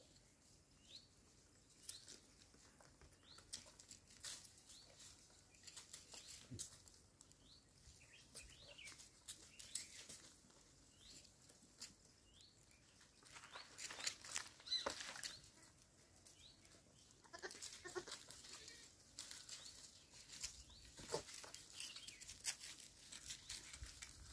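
Goats' hooves giving faint, scattered clicks and scrapes on concrete and tree bark, with a short goat bleat about 18 seconds in.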